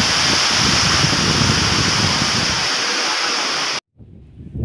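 Loud, steady rush of water with wind buffeting the microphone. The sound cuts off abruptly about four seconds in, and a much quieter scene follows.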